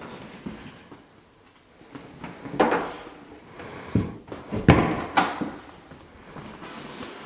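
A few knocks and bangs of doors or drawers being opened and shut, the loudest about four and a half seconds in.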